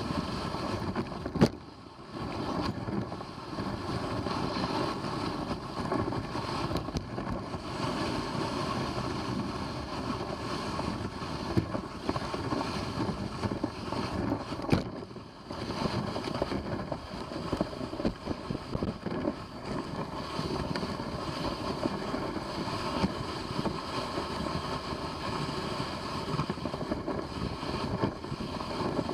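A rig drawn by a dog team moving along the trail, making a steady rushing, scraping noise, with wind on the microphone. A sharp knock comes about a second and a half in and another near the middle, each followed by a short lull.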